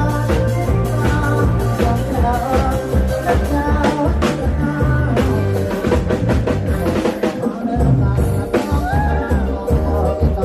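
Live Isan rock band on a rot hae sound truck, played loud through the truck's PA: a drum kit and heavy bass beat under a singing voice and melody. Recorded with the camera's own microphone.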